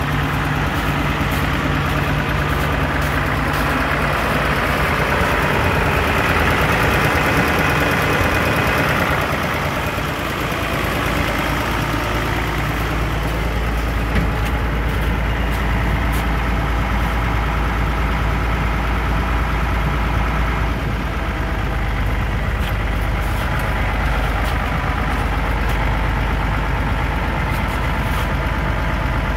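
Case farm tractor's engine idling steadily. A deeper low rumble grows stronger from about ten seconds in.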